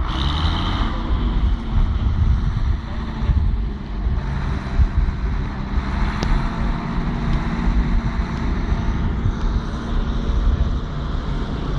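Roadless Ford four-wheel-drive conversion tractor's diesel engine running steadily under load while ploughing uphill.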